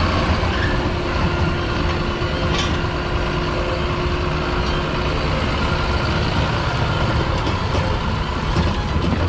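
Heavy vehicle engine running steadily, with a low rumble and a steady hum.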